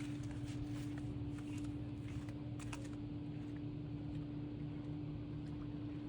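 Boat engine running steadily, a constant hum over a low rumble, with faint scattered clicks.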